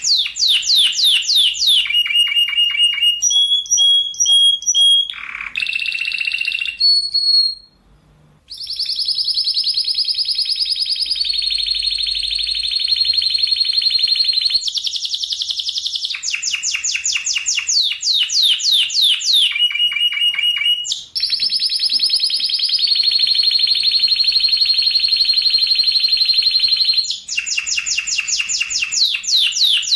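Spanish Timbrado canary singing: runs of quick falling notes alternating with long, very fast rolling trills, with a short pause about eight seconds in.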